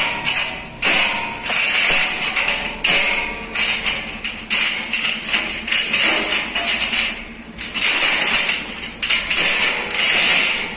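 Chain hoist and its lifting chains rattling and clanking in repeated bursts about once a second while a Hino 500 truck engine hangs from them and is worked into place.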